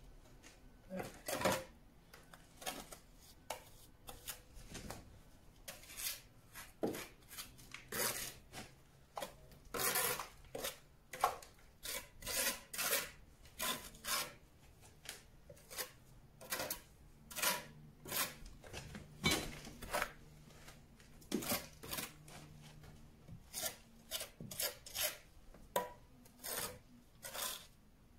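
A hand tool scraping mortar and masonry around a padstone being bedded, in irregular short strokes, one or two a second.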